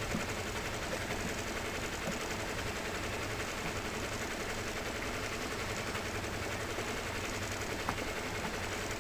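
Outboard motor of a small inflatable boat running steadily at low speed, an even hum with a couple of faint clicks.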